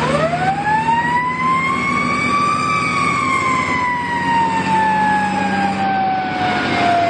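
Fire engine siren winding up, rising quickly in pitch over the first two and a half seconds and then falling slowly, over a steady low hum.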